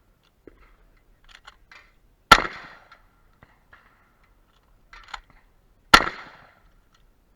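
Shotgun firing two shots about three and a half seconds apart, each a sharp report with a short tail. Lighter clicks and clacks of the gun being handled come just before each shot.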